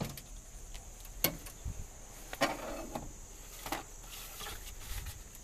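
A few clicks and knocks from inside a 1972 Chevrolet pickup cab as the glove box is reached for and opened, one sharp click about a second in, over a steady high insect drone.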